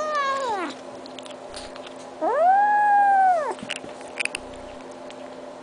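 Kitten meowing: the end of a falling meow at the start, then one long, drawn-out meow about two seconds in that rises, holds and falls away. A few faint clicks follow.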